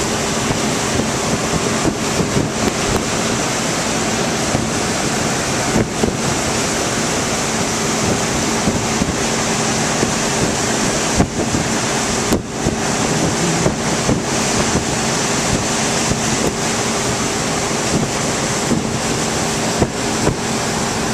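Wind buffeting the microphone over the steady rush of the boat's churning wake, with the towing motorboat's engine droning as a faint steady hum underneath. Small knocks and gusts break through here and there.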